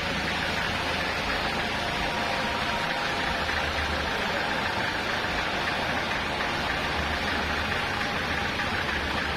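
Sawmill machinery running steadily: a low engine hum under an even hiss.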